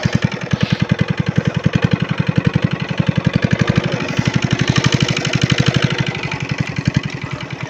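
Small engine running steadily with an even, rapid knock of about ten beats a second, easing off slightly near the end.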